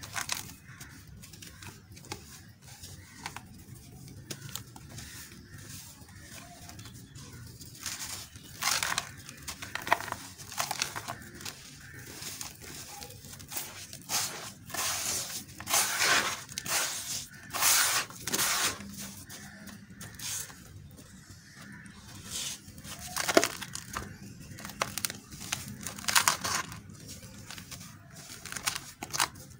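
Hands crushing and crumbling chunks of gritty red dirt, the grains pouring down into a basin of muddy water, giving irregular gritty crunches and rustles. They are soft for the first several seconds, then come in louder bursts from about eight seconds in.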